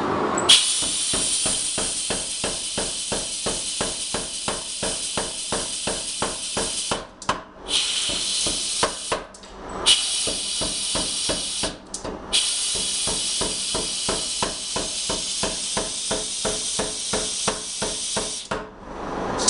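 Power hammer striking a forge-hot round steel bar in a fast, even rhythm of about four blows a second, drawing it out toward a knife blade, with a steady hiss running alongside that cuts out briefly a few times.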